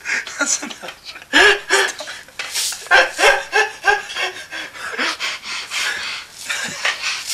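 Laughter in quick, breathy repeated bursts, with panting between them.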